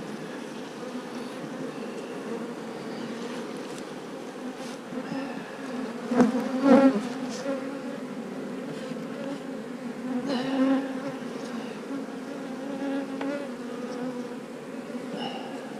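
Swarm of honeybees buzzing around an open hive, a steady hum that gets louder about six seconds in and again about ten seconds in.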